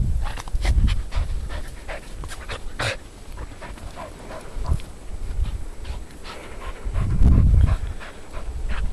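Springer spaniel panting hard as she runs and digs in snow, with short scuffing noises. Low rumbles come and go, loudest about seven seconds in.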